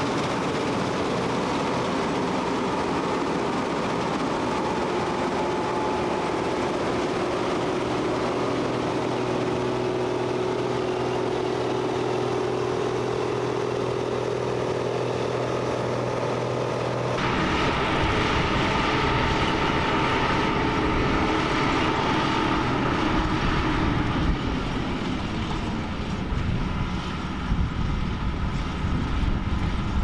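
CLAAS Mega 204 Dominator combine harvester running steadily while cutting and threshing wheat: an even engine and machinery hum with a few held tones. About halfway through the sound changes abruptly, with much more low noise and a less even level.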